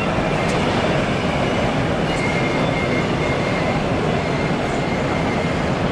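Steady exhibition-hall hubbub with an N gauge model train running on a layout. A faint, steady high whine starts about two seconds in.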